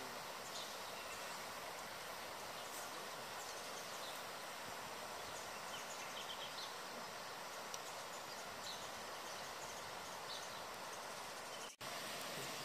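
Steady, even hiss of outdoor ambience with faint, scattered high bird chirps. It drops out for an instant near the end.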